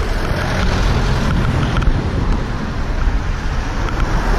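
Wind buffeting a handheld camera's microphone: a loud, steady rumble and hiss.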